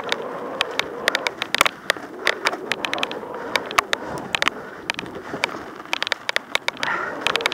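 Mountain bike rolling fast down a dirt forest trail: tyres rumbling over the ground with frequent irregular clicks and rattles from the bike jolting over roots and bumps.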